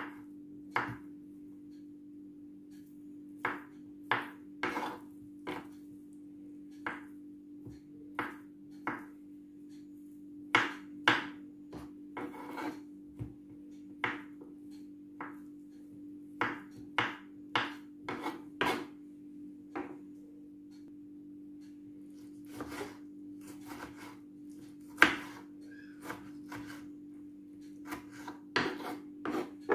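Kitchen knife cutting boiled potato, avocado and tomato on a wooden cutting board: irregular taps of the blade against the board, with a steady low hum beneath.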